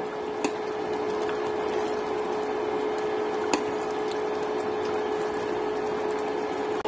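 Thick pork stew simmering in a metal pot, a steady bubbling hiss over a constant hum, with a couple of light clicks of a ladle against the pot, one just under a second in and one about three and a half seconds in.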